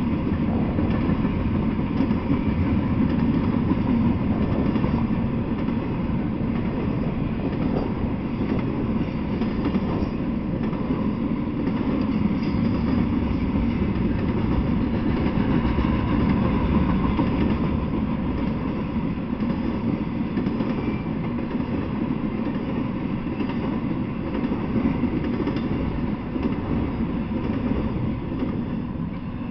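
Intermodal freight train rolling past: the steel wheels of its container-carrying well cars running steadily on the rails, easing off near the end.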